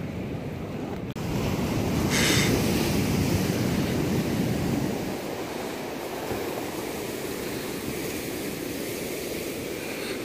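Surf breaking and washing on a pebbly beach, a steady rushing noise, with wind buffeting the microphone, strongest in the first few seconds.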